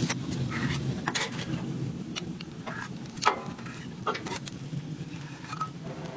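Metal spatula clicking and scraping on a flat-top griddle, about six sharp knocks spread out, the loudest about three seconds in, over the steady sizzle of cheeseburger patties cooking.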